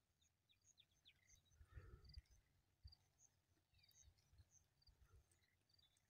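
Near silence: faint outdoor ambience with many small, short high-pitched chirps. There are a few soft low thuds about two seconds in.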